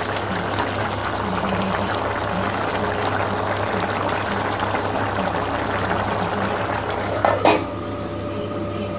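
Rice khichdi bubbling at a simmer in a steel pot, a steady wet bubbling hiss. About seven seconds in, a steel lid clanks onto the pot and rings briefly.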